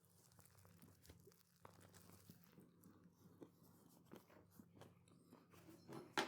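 Faint biting and chewing of a plant-based burger in a soft bread roll: soft, irregular mouth clicks and crunches, with one sharper click near the end.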